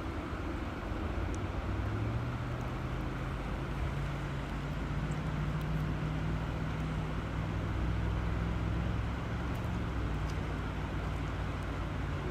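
River water flowing in a steady rush, with a low hum underneath that starts about two seconds in and shifts in pitch a few times.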